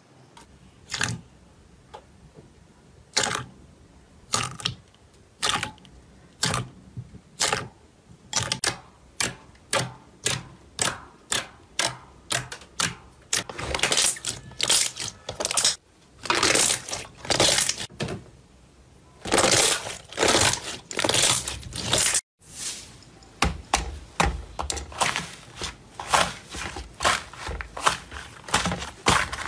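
Hands poking, pressing and squeezing slime, making a run of sticky clicks and pops about one or two a second with some longer crackling squelches. After a short break about two-thirds of the way through, fingers dig into a pink fluffy slime with a quicker, denser crackling.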